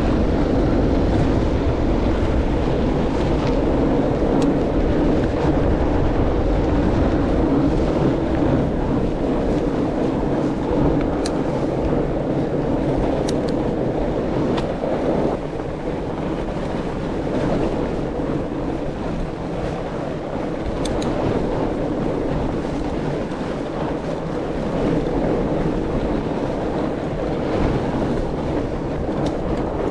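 Mountain bike riding over packed snow: a steady rumble of tyres rolling through snow mixed with wind on the handlebar camera's microphone, with a few sharp clicks now and then.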